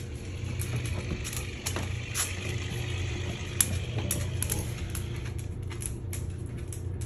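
Scattered light clicks of dog claws on a hard floor, one sharper click about three and a half seconds in, over a steady low hum.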